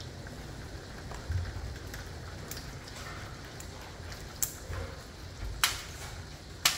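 Hurricane rain: a steady hiss of rain with a low rumble underneath. Several sharp clicks cut through it, the loudest two near the end.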